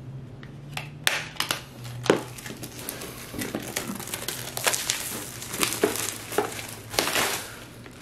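Clear plastic shrink-wrap crinkling and crackling as it is torn and peeled off a cardboard box, with irregular sharp crackles throughout.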